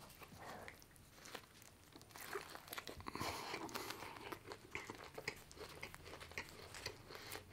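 A person biting into a grilled chicken burger and chewing the mouthful, with many small crunching clicks that grow busier and louder about three seconds in.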